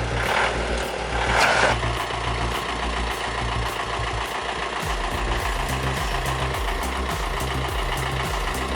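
A heavy machine's engine running, with two louder swells in the first two seconds, under background music with a steady beat.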